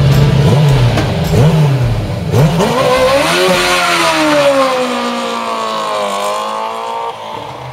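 Yamaha-engined racing sidecar outfit launching from the start line. The engine note jumps up sharply about two seconds in, climbs and falls through the gears as it accelerates away, and fades near the end.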